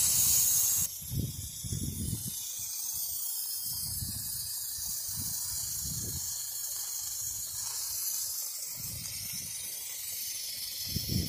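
Live steam hissing steadily from leaks around a model twin-cylinder oscillating steam engine, louder for about the first second, with occasional low bumps underneath. The leaks are at the engine's copper-and-brass steam manifold.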